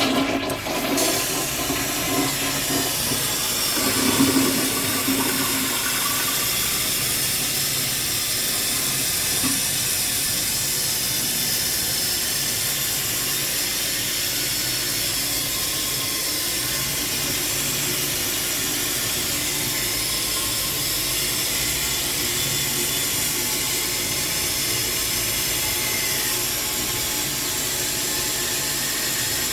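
Toilet flushing, with the water rushing out for the first few seconds, then the tank refilling: a steady hiss of water through the fill valve.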